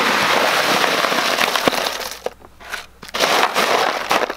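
Bagged ice cubes pouring into a plastic cooler: a dense clatter and crunch of ice that eases about two seconds in, then starts up again about three seconds in as the ice shifts in the cooler.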